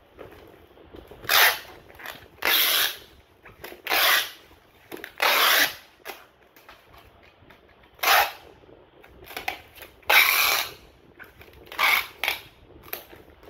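Packing tape pulled off the roll of a handheld tape dispenser, about eight short noisy pulls of half a second to a second each, with light rustling of foam wrap between them.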